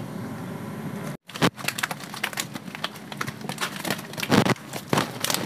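A wet black net bag of freshly harvested tilapia is handled and emptied onto a cloth. From a little over a second in come irregular sharp slaps and clicks of fish dropping, along with crinkling of the wet net.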